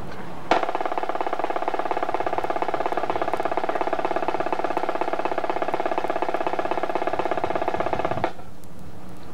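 Ceremonial military band music played as honors: one long held chord over a rapid drum roll, starting abruptly about half a second in and cutting off sharply near the end.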